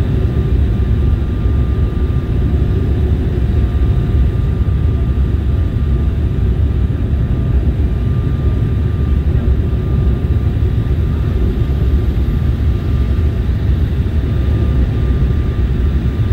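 Steady cabin noise of a jet airliner descending on approach, heard from a window seat over the wing: a loud, even low rumble of the engines and rushing air, with a faint steady whine above it.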